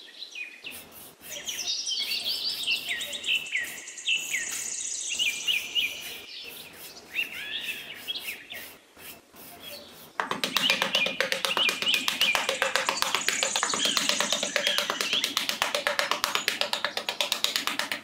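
Birds chirping in quick repeated calls, with scattered clicks. About ten seconds in, background music with a fast tapping beat starts, and the birdsong carries on over it.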